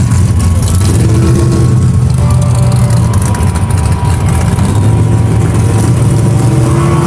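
1969 Chevrolet Camaro Z28's 302 small-block V8 idling steadily with a deep, even hum, loud close to the car.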